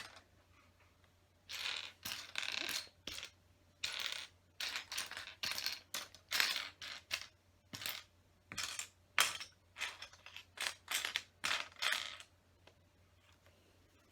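Loose plastic LEGO pieces clattering as they are sifted through by hand, in irregular bursts of rattling clicks that stop near the end.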